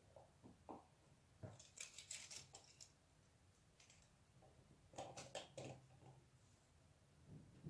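Near silence with faint scattered clicks and rustles, in a cluster about a second and a half in and another about five seconds in.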